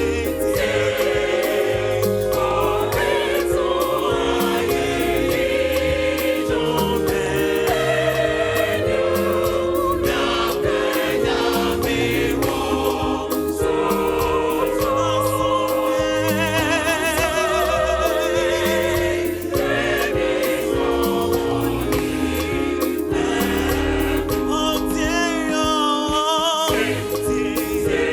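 A gospel choir singing held chords in several-part harmony over a bass line and a regular percussion beat, with wavering high vocal lines coming forward near the end.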